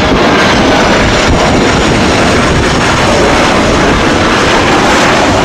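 Engines of a twin-engine Airbus A330 jet airliner, a loud steady rush of noise as it flies low over the runway with gear down.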